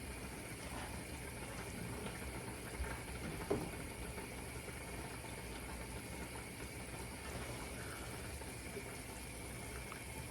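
Pot of pasta water boiling steadily on the hob, with a light knock about three and a half seconds in.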